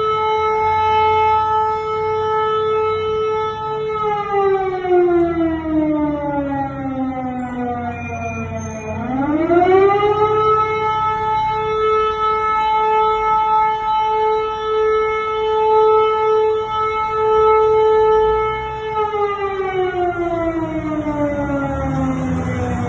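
Air raid siren sounding an alert: a steady, wailing tone that slides down in pitch, swoops quickly back up and holds, then starts falling again near the end.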